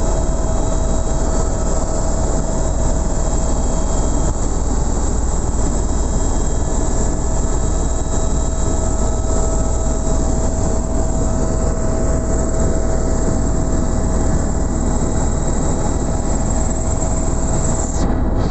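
Helicopter in flight heard from inside the cabin: a loud, steady rumble of engine and rotor with a constant whine.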